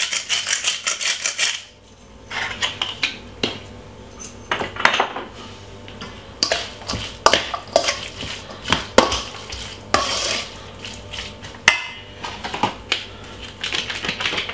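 A salt grinder being twisted gives a fast, even rattle of clicks for about the first second and a half. After that a metal spoon stirs and scrapes chicken pieces around a stainless steel mixing bowl, with irregular clinks against the bowl's side.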